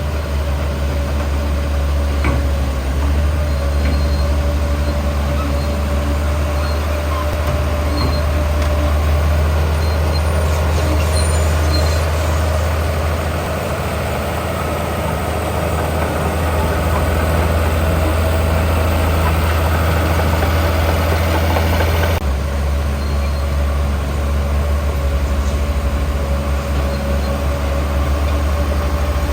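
Heavy diesel construction machinery running steadily under work, a deep engine drone with a little clatter on top. The sound shifts abruptly about two-thirds of the way through.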